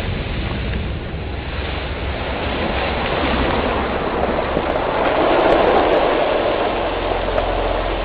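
Churning water and falling spray thrown up by an underwater explosion, with waves washing over breakwater rocks: a steady rushing noise that swells about five to six seconds in.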